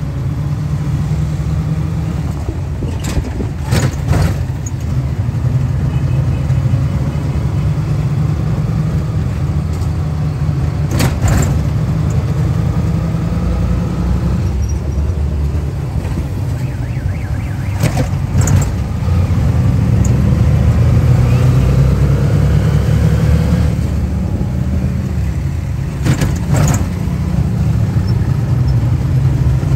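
Steady low rumble of road and engine noise heard from on board a vehicle driving across a bridge. Sharp knocks come in close pairs four times, as the wheels cross the bridge's joints.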